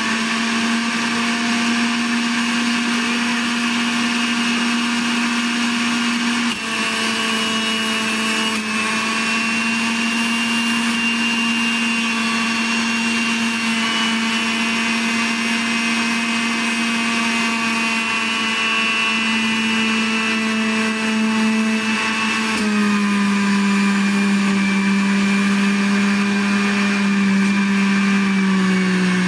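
Electric juicer motor running with a steady whine as fruit is pushed down the feed chute. Its pitch drops about a quarter of the way in and drops further from about two-thirds of the way through, as the pusher presses produce into the spinning blade.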